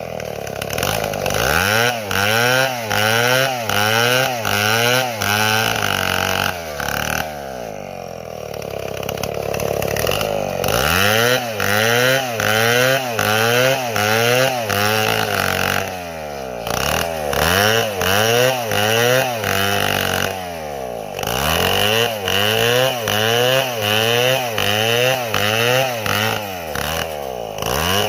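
Large Stihl chainsaw cutting, its engine speed rising and falling in a steady rhythm under load, somewhat faster than once a second. It eases off for a few seconds about a quarter of the way in, and briefly twice more later on.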